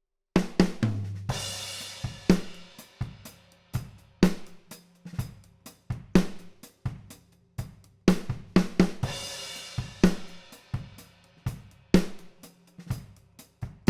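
Acoustic drum kit played in a steady groove of kick, snare and hi-hat, with a cymbal crash about a second in and another about two-thirds of the way through. It is heard through large-diaphragm tube condenser overhead microphones, with no EQ or compression.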